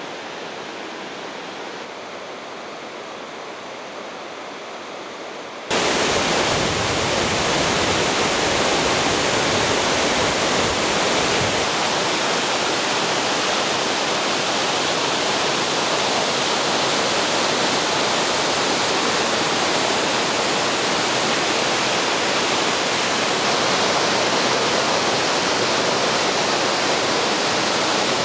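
Steady rushing roar of the Namegawa Ōtaki waterfall. About six seconds in it suddenly becomes much louder and fuller, then holds steady.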